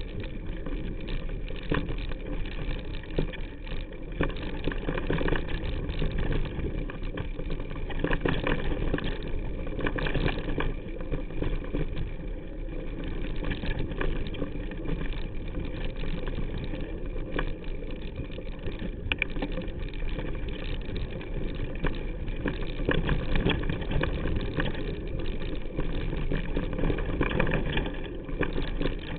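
Mountain bike riding down rough dirt singletrack, heard through a handlebar-mounted camera: a steady rumble of tyres and frame over the trail, with many small knocks and rattles from bumps.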